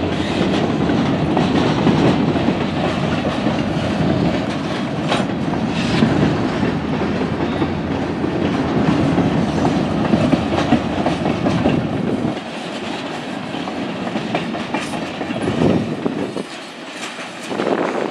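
Freight train of covered hopper cars rolling past, its steel wheels clattering on the rails with sharp clicks now and then. The sound is quieter in the last few seconds.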